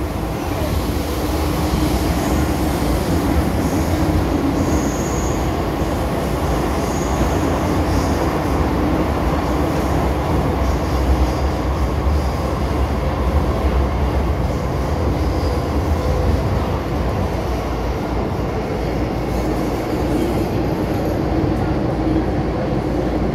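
MTR M-Train electric multiple unit running, heard from inside the car: a steady loud rumble of wheels and traction equipment, with a few brief faint high squeals in the first eight seconds.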